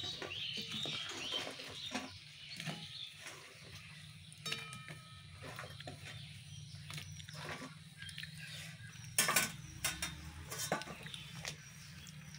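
Cooking sounds at a karahi of simmering tamarind curry as fried fish-roe fritters are put in: scattered clinks and taps of a spoon against the pan over the gravy's soft bubbling, with one sharper knock about nine seconds in.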